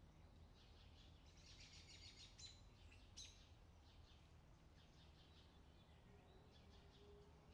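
Faint, irregular clicking and scraping of metal flexible double-pointed knitting needles as stitches are worked, with one sharper click a little past three seconds in, over a low steady hum.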